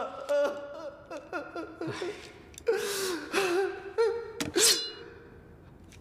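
A man sobbing, with wavering cries and sharp gasping breaths between them, trailing off near the end.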